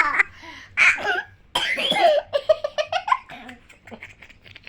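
A young child's short coughs and breathy laughter, with a quick run of 'ha-ha' laughs about halfway through. The coughing follows a bout of singing.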